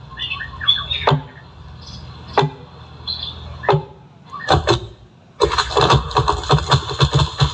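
Loud single percussion strikes about every second and a quarter, then from about five and a half seconds in a fast, dense run of strikes with a bright hiss over it.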